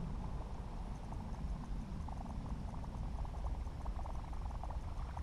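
Spinning or casting reel being cranked on a retrieve, a quick run of rapid clicking from about two seconds in, over a steady low wind rumble on the microphone.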